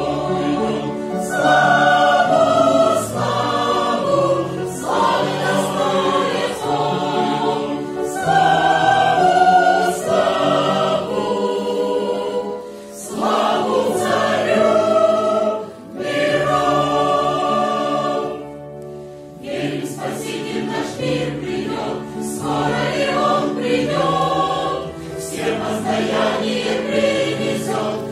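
Mixed choir of men's and women's voices singing a hymn in parts, the phrases swelling and falling away, with a short lull about two-thirds of the way in.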